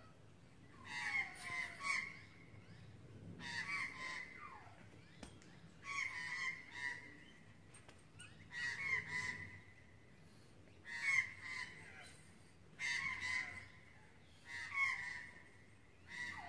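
Crow calling over and over, a short bout of harsh caws, some falling in pitch, about every two seconds.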